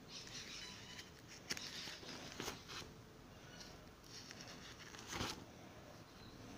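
Plastic sleeve pages of a display book being turned, crinkling and rustling in a few short bursts, with sharp crackles about a second and a half in, at two and a half seconds, and near the end.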